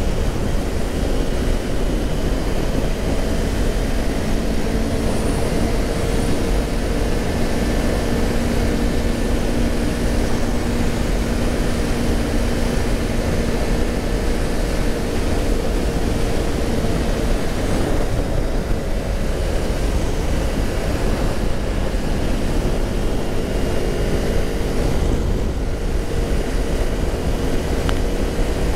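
Motorcycle riding at speed: a steady rush of wind on the microphone with the engine's drone underneath, its pitch shifting slightly a little past the middle.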